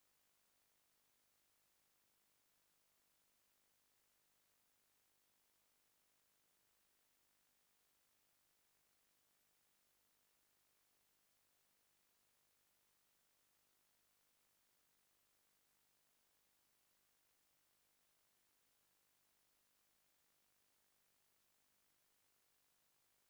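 Near silence: the soundtrack is essentially empty, with no audible sound.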